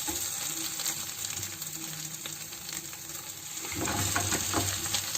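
Ginger paste sizzling as it fries in ghee in a pan on the stove, browned and nearly dry. A spoon stirs it, and near the end a louder, rougher scraping and clatter sets in.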